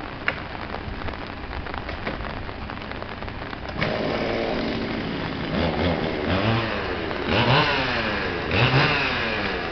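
Steady rain, then about four seconds in a chainsaw starts running and is revved up and down several times.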